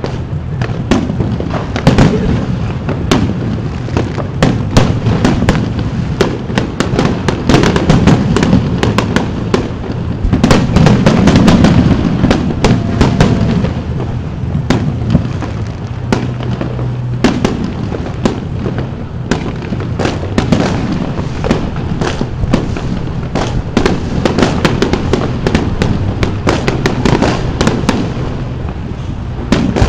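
Fireworks display: aerial shells bursting one after another, a continuous run of bangs and crackles that is densest and loudest about a third of the way in.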